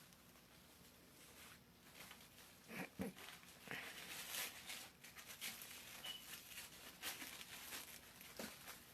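Faint rustling and crinkling with a few soft knocks, close to silence.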